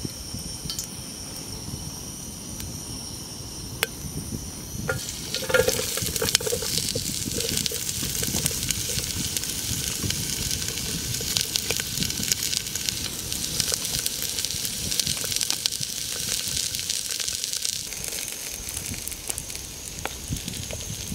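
Chopped onion hitting hot oil in a steel camping pot: sizzling starts about five seconds in and keeps crackling steadily as it fries, with a few knocks of the container and spoon against the pot.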